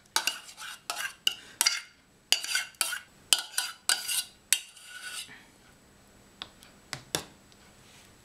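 Metal spoon scraping and clinking against the inside of a stainless steel saucepan in a dozen or so quick strokes, scraping out the last of the custard. The strokes stop about five seconds in, followed by a few light taps.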